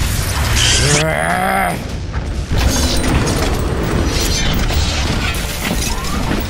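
Cartoon action sound effects: a deep rumbling boom and continued rumble under dramatic background music, with a short strained vocal cry about a second in.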